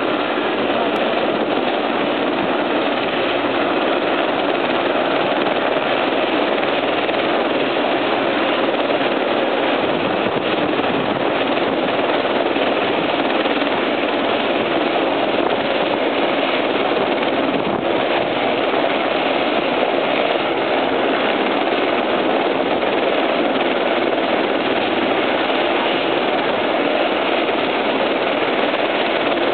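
Eurocopter Ecureuil helicopter running on the ground, its turboshaft engine and spinning main rotor making a loud, steady noise that neither rises nor falls.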